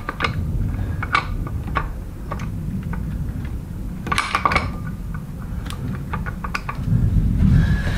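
Scattered metallic clicks and taps as an MSD distributor is twisted and worked down into a Ford V8 block, its helical gear seeking the camshaft gear, over a steady low rumble that swells near the end.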